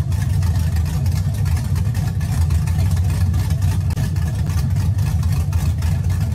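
Chevrolet Caprice PPV's 6.0-litre V8 idling steadily. The engine is fitted with a Stage 3 blower cam and JBA headers.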